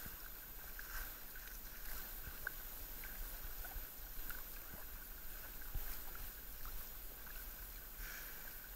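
Tandem kayak under way: paddle blades dipping and splashing, with water washing along the hull as a steady hiss, punctuated by small splashes.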